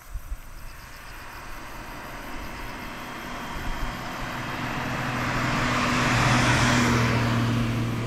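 A small car approaching along the road and passing close by: tyre and engine noise swells over several seconds, loudest about six to seven seconds in, then begins to fade, with a low steady engine hum underneath.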